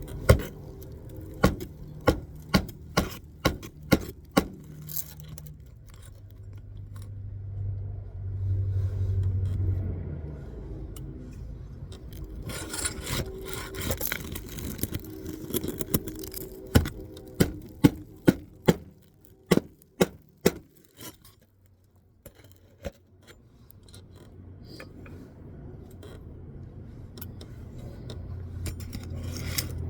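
A hammer striking roofing nails in shingles in two runs of sharp taps, about two a second, with scraping and rubbing of shingles and tools between them. A low rumble swells and fades about a third of the way in.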